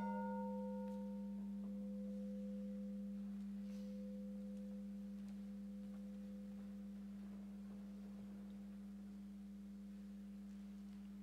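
White quartz crystal singing bowl ringing with one deep, steady tone and fainter higher overtones. It has just been sounded: the higher overtones die away within the first couple of seconds while the main tone fades slowly. It is rung as the call that opens worship.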